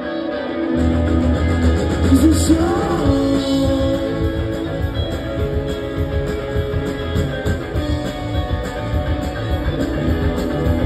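Live rock band playing a song through a club PA, with electric guitar, bass, drums and singing; the low bass comes in about a second in.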